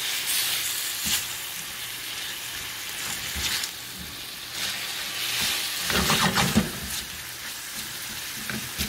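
Cubed chicken breast sizzling in oil in a stainless steel frying pan as it is stirred with a silicone slotted spatula. A steady frying hiss runs under short bursts of stirring and scraping, the loudest about six seconds in.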